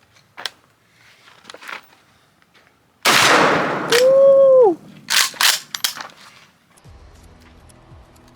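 A shotgun fires a slug about three seconds in: a single loud blast that stays loud for over a second, with a whistle-like tone that falls away at its end. A few sharp clacks follow, and faint clicks come before it.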